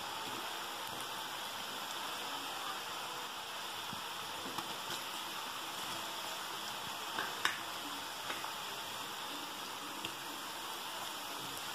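Masala-coated groundnuts deep-frying in hot oil: a steady sizzle with a few short, sharp crackles scattered through, the loudest about seven and a half seconds in.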